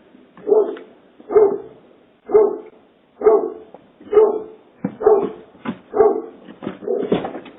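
A dog barking repeatedly, about ten single barks, roughly one a second at first and coming a little quicker near the end, picked up by a doorbell camera's microphone.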